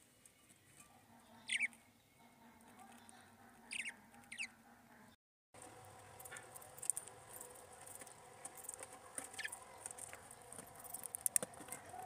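Budgerigars giving short chirps that fall in pitch, three in the first few seconds and two more later. After a brief dropout there is light clicking and scratching.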